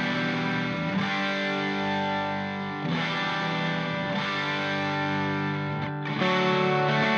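Background music with sustained chords that change every second or two; it gets louder about six seconds in.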